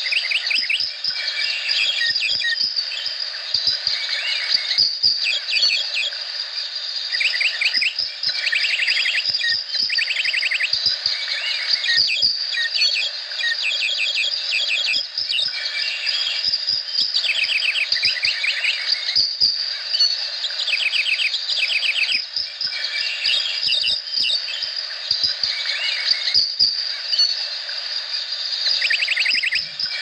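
Tropical rainforest chorus: a steady, high-pitched insect drone under many short, rapid trilling calls that recur every few seconds.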